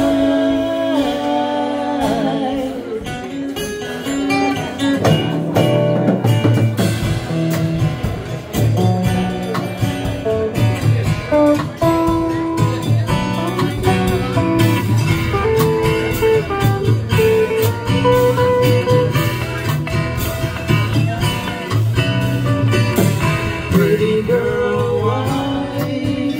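Live band playing an instrumental break: electric guitar taking the lead over acoustic guitar and a steady drum kit beat, with the last sung note fading out about two seconds in.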